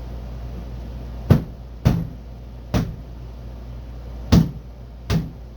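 Five sharp knocks a second or so apart as the snap-in clips of a car door's rubber gasket are pressed and struck into the door; the snaps aren't seating right.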